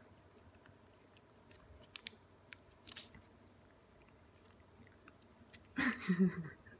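Ragdoll cats licking and lapping liquid Ciao Churu treat from a squeeze tube, with faint wet licking and smacking clicks. A short, louder voice-like sound comes near the end.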